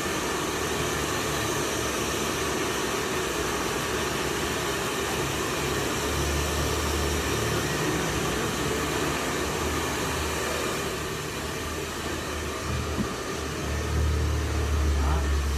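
Hand-held hair dryers blowing steadily during a blow-dry, a loud even rush of air with a faint motor whine. A low rumble swells about six seconds in and again near the end.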